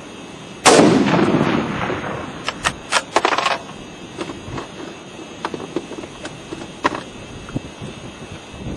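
A single loud rifle shot about a second in, with a long rolling echo, followed a couple of seconds later by a quick run of sharp clicks and knocks.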